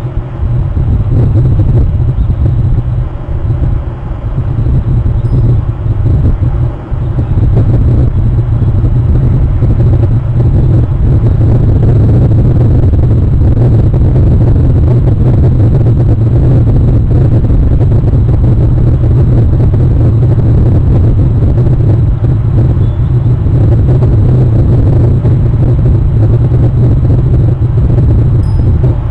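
A loud, steady low rumble with slight rises and falls: wind buffeting the outdoor nest camera's microphone.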